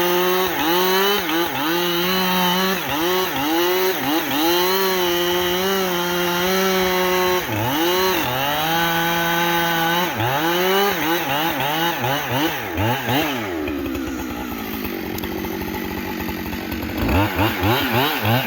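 Chainsaw at high revs cutting into a tree, its pitch dipping and recovering over and over as the chain bogs in the wood. About two thirds of the way through it drops to a lower, quieter speed for a few seconds, then revs back up near the end.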